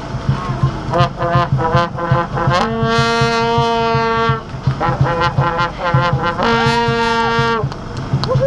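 Music with a steady beat, a run of short notes and two long held notes, one about three seconds in and one about seven seconds in.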